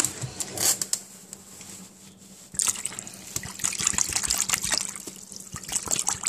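Water pouring from a plastic bottle into a bowl already holding liquid, the stream splashing into it; the pour gets going in earnest about two and a half seconds in.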